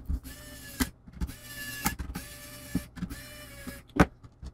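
Small electric screwdriver motor whining in four short runs about a second apart, backing out the four screws that hold the laptop's heatsink to the CPU. Light clicks fall between the runs, and a sharp knock comes near the end.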